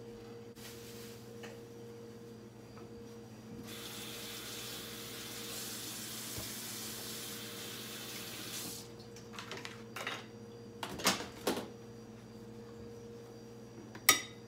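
Kitchen tap running for about five seconds, then several sharp knocks as things are set down on the countertop and cutting board, the loudest near the end.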